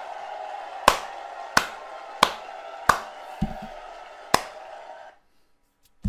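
Five loud, slow hand claps close to the microphone, about two-thirds of a second apart, over a steady wash of audience noise from the played performance. The background cuts off suddenly about five seconds in.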